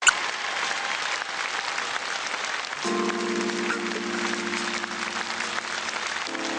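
Audience applauding. About three seconds in, a held chord with a slight wavering comes in under the applause and changes once near the end: the song's instrumental introduction.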